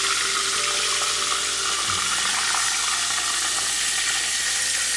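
Flour-battered chicken breasts frying with a steady sizzle.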